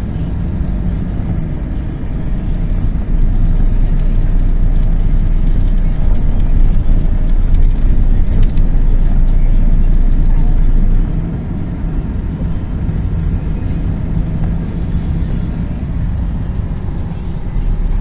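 Coach bus engine and road noise heard from inside the passenger cabin: a steady low drone that grows louder about three seconds in and eases back about eleven seconds in.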